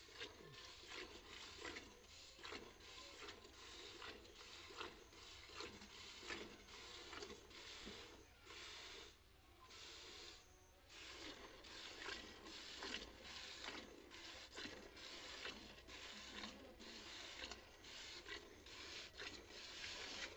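Cow being milked by hand: faint, rhythmic squirts of milk hissing into a metal pot, two or three strokes a second, with a short break about nine seconds in.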